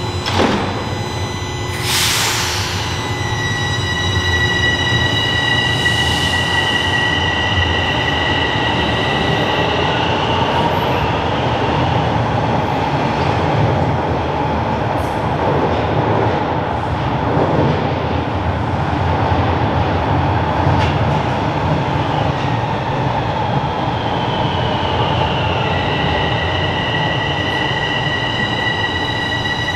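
TTC Line 4 subway trains running through a station, a continuous low rumble. It carries a high, steady squeal of even pitch for several seconds early on, which fades out about ten seconds in. The squeal glides down and sets in again near the end as another train comes in.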